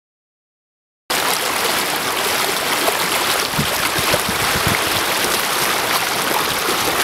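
Churning floodwater rushing and surging along a concrete bulkhead, starting abruptly about a second in, with a few dull low thumps in the middle.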